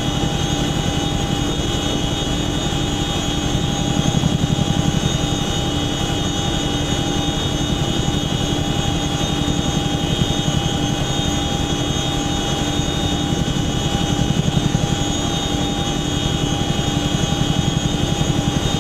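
CH-47F Chinook tandem-rotor helicopter in flight: a rapid, steady rotor beat under a steady whine of several tones, swelling slightly twice.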